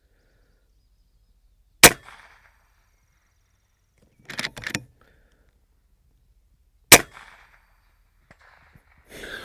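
FX Impact M3 .22 PCP air rifle firing twice, about five seconds apart, each shot a sharp crack with a brief fading tail. There is a short series of clicks between the two shots.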